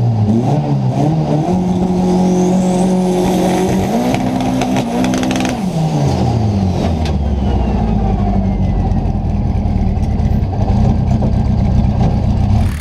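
Turbocharged Volkswagen Saveiro drag-race engine revving with the car standing still, heard from inside the cabin. The revs climb and hold steady for a couple of seconds, rise again around four to five seconds in, then drop and settle to a lower steady run.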